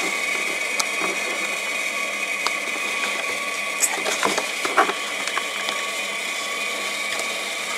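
A steady motor-like whine runs throughout, with a few light clicks and taps of metal and plastic as a nut is worked onto a bolt by hand behind a plastic housing, the clearest about four and a half seconds in.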